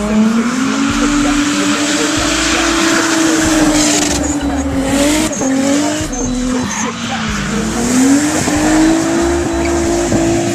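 Nissan 240SX's RB20DET turbo straight-six held at high revs while drifting, its pitch climbing at the start, dipping a couple of times around the middle and rising again, over the hiss of tyres squealing and sliding.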